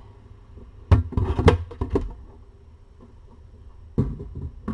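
Sharp knocks and rustling: a cluster of them about a second in, then another sharp one about four seconds in.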